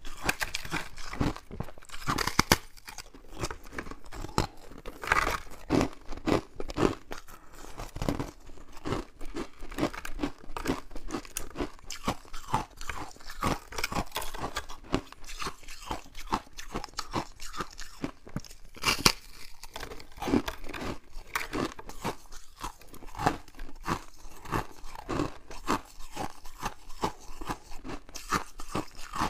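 Crisp, crackling crunching of freezer frost as it is broken apart by hand and bitten and chewed: many sharp little crackles, irregular and closely packed.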